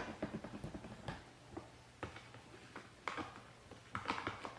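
Faint, scattered clicks and light taps of small plastic bottles and containers being handled and set down, with a sharper click at the start and a quicker run of taps near the end.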